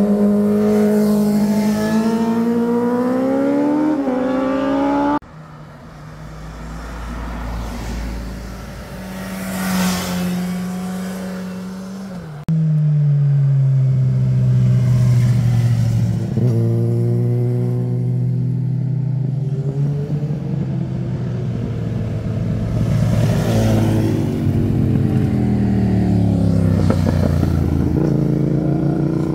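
Motorcycle engines through a hairpin bend: one rises in pitch as the bike accelerates, and after an abrupt cut others pass close by with the pitch falling away as they go. The sound changes sharply twice where clips are cut together.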